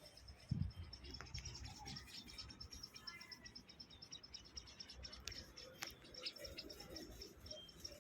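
Bird chicks chirping faintly, a rapid run of thin high cheeps with scattered short calls over it, plus a few low knocks and rustling.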